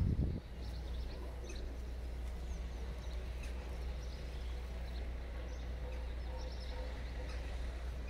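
Outdoor ambience: scattered faint bird chirps over a steady low rumble.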